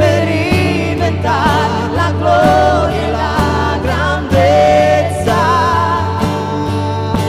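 Christian worship song: sung melody with vibrato over a band's sustained chords and steady beat, settling on a long held note about five seconds in.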